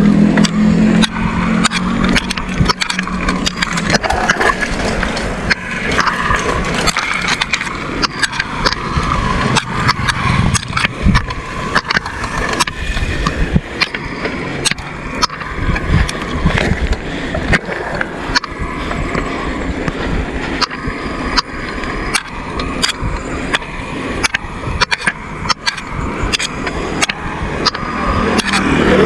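Bicycle ridden fast on rough asphalt: tyre roar and wind rushing over the handlebar-mounted action camera, with frequent clicks and rattles from the bike over bumps. A low motorbike engine hum sounds at the start and again near the end.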